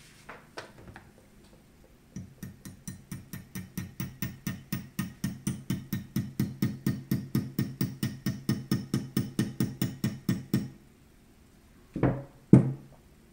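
Rapid light tapping on a steel pin being driven into a shotgun receiver, about four or five taps a second, growing louder over some eight seconds. Two louder knocks follow near the end.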